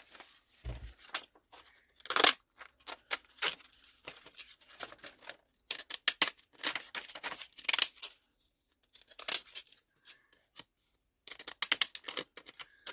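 Scissors snipping through paper in repeated cuts, coming in several bursts with short pauses between, as a mounted paper quote is trimmed around.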